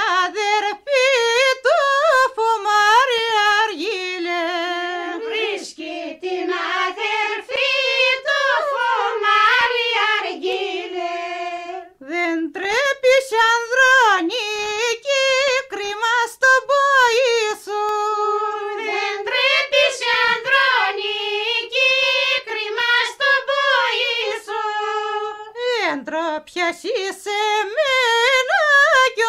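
A single high voice singing a Greek folk song, one ornamented melodic line that bends and turns between held notes, with short breaths and a brief pause about twelve seconds in and again near twenty-six seconds.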